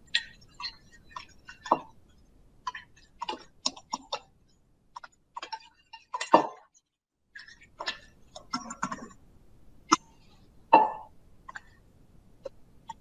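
Spoon stirring borax into warm water in a stainless steel bowl to dissolve it: irregular clinks and scrapes of the spoon against the metal bowl, with a few louder knocks.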